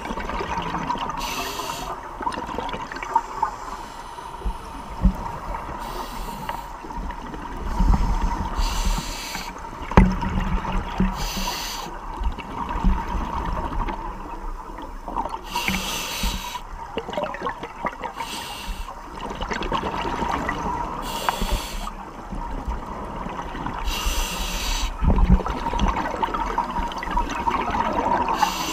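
Scuba diver breathing underwater through a regulator: a short hiss of drawn air every few seconds, with rumbling bursts of exhaled bubbles between them. A faint steady tone runs underneath.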